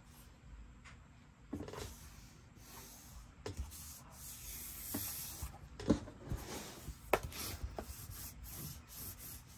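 A sheet of pattern paper being handled and rubbed down by hand, with scattered light taps and knocks.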